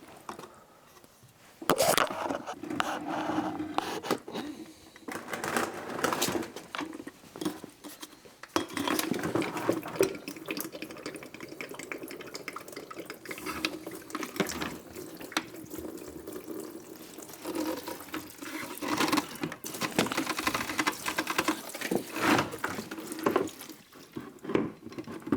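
Stale gasoline being poured out of a small-engine pressure washer into a container, splashing and trickling unevenly with short pauses. This is old fuel that sat two years and went bad.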